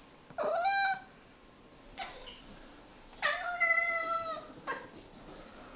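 Domestic cat meowing twice: a short meow about half a second in, then a longer, drawn-out meow past the middle.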